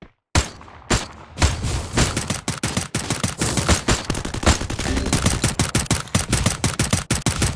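A rapid volley of sharp cracks and bangs: two single cracks in the first second, then a dense run of many bangs a second that thins out near the end.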